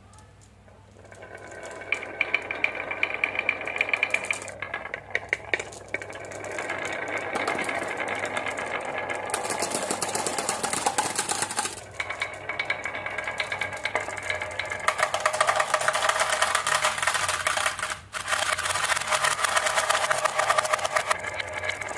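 Marbles rolling and clattering down marble-run tracks, a dense rapid rattling with a ringing tone. It starts about a second in and briefly drops out twice.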